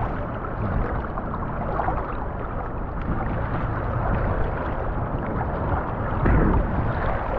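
Sea water sloshing and churning around several men wading waist-deep through shallow surf, with one louder surge about six seconds in.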